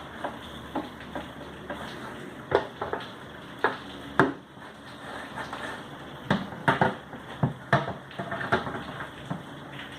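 Irregular knocks and clatter of hard objects being handled and set down, with a few louder knocks about two and a half, three and a half and four seconds in, and a busier run of knocks in the second half.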